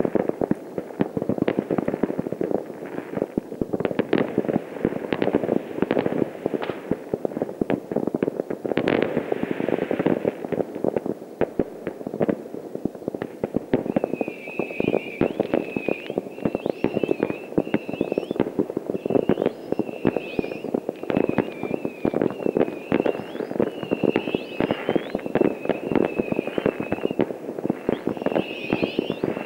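Distant fireworks going off all over a town: a dense, continuous crackle of many overlapping bangs and pops from rockets and firecrackers. From about halfway, a high, wavering whistle-like tone keeps repeating over the bangs.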